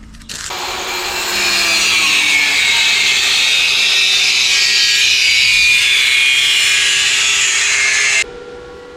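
Electric abrasive power tool grinding on steel gate stock: a loud, harsh hiss over a faint motor hum that starts just after the beginning and cuts off abruptly after about eight seconds.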